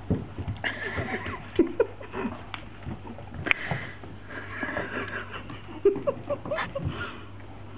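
Small dogs play-fighting: a Pekingese and French Bulldog puppies giving short yips, squeals and grumbles, over scattered clicks and knocks of paws scrabbling on the floor.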